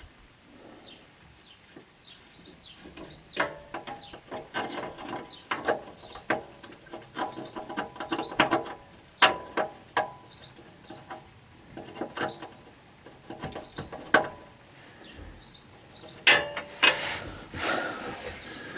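Irregular metallic clicks, clinks and knocks, some ringing briefly, as steel parts and tools are worked under a truck, with a louder scraping stretch near the end.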